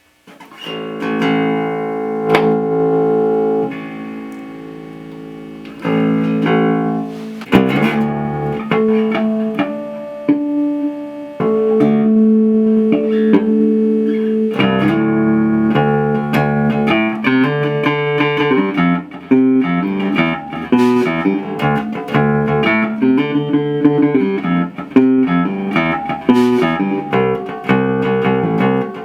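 Fender Precision Bass being played: held plucked notes at first, then quicker runs of notes from about eight seconds in. The plugged-in bass sounding out is the test of its newly replaced output jack.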